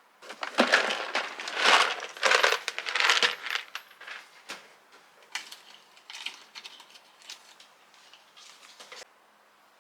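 Small hard objects clinking and clattering as they are handled, like kitchenware being moved about. The clatter is busy for the first few seconds, then sparser, and stops suddenly about nine seconds in.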